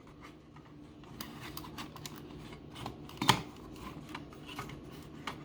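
A plastic smoke detector being handled by hand, with small plastic clicks and rattles as its battery compartment is handled. There is one sharper knock about three seconds in.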